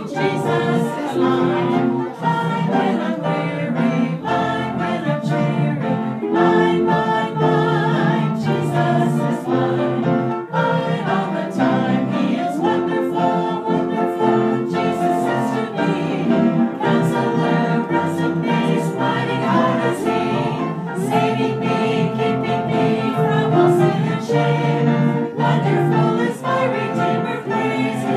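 A roomful of people singing a gospel chorus together, accompanied by piano and organ.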